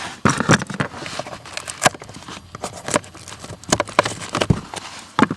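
Irregular clicks, knocks and rattles of a 1/4-inch ratchet with a 7/32 socket taking a small screw out of the plastic cabin-filter access door on the HVAC box, with the door being worked loose.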